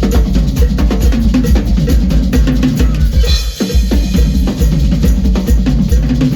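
Live drum and percussion solo: rapid, dense drum-kit playing with bass drum, snare and rimshots, broken by a short gap about three and a half seconds in.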